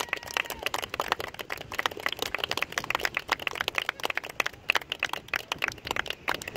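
A small group of people clapping: many quick, irregular claps overlapping.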